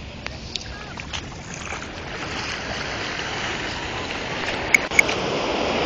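Shallow ocean surf washing over sand, growing louder as a wave rushes in near the end. Two short sharp clicks about five seconds in.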